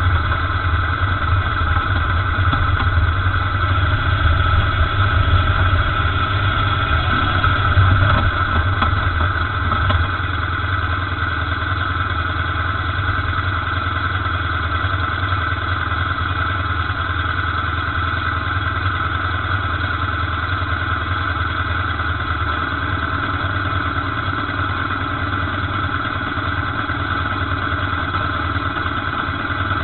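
Motorcycle engine idling steadily close to the microphone, the BMW R1200GS boxer twin the camera is mounted on. A second motorcycle's engine joins it for the first ten seconds, pulling up close and then settling.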